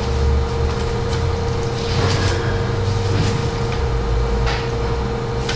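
Room background noise: a low steady rumble and a constant hum, with a few faint clicks and rustles.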